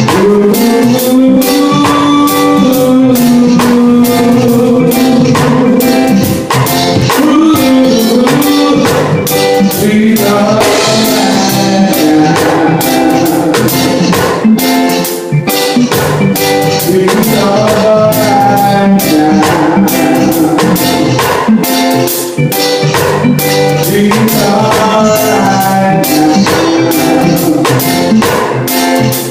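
A band playing a song at a sound check: a singer holds long, sliding notes over a steady drum-kit beat with cymbals and other backing instruments.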